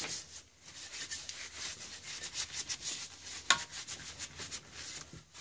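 A hand file scraping on metal in short, irregular strokes, with one sharp click about three and a half seconds in.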